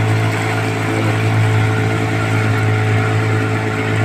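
Outboard motor of an inflatable boat running at a steady cruising speed, a constant low drone, with water rushing past the hull.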